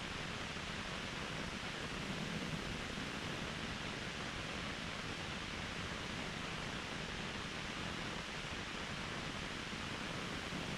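Waterfall rushing, a steady even roar of falling water.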